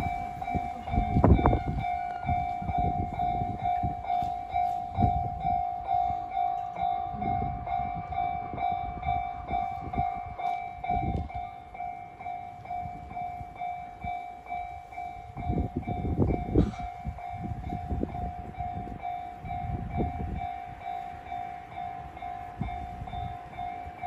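Japanese level-crossing warning bell ringing in a steady, rapid repeating ding as the barrier arms lower, the signal that a train is approaching. Irregular low gusts of wind buffet the microphone underneath.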